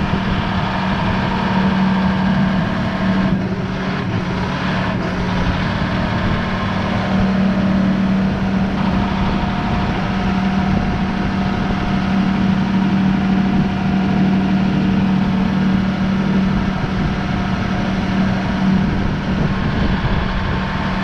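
John Deere 6155M tractor's diesel engine running steadily with a constant low hum while it carries a round hay bale across the pasture.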